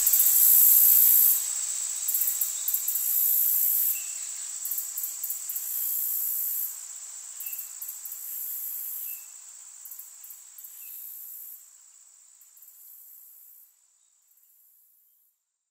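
High-pitched, cricket-like hissing buzz that cuts in and out in short stretches and fades gradually away to silence.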